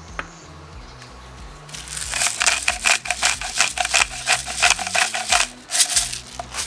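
Hand-twisted salt and pepper grinder mills grinding seasoning into the pot: a fast run of crunchy clicks from about two seconds in, then a short second burst near the end.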